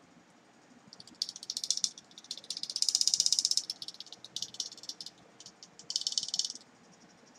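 Small square cooling fan with an orgonite disc glued on top, spinning and rattling: a fast, high clicking rattle that comes in bursts from about a second in, loudest around three seconds, and stops near the end. It is a rattle the fan doesn't usually make.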